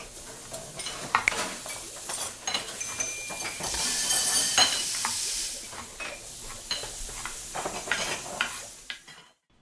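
Kitchen sound effects: utensils clinking and scraping against cookware over a steady sizzle, with many sharp clicks and a few short high rings, fading out near the end.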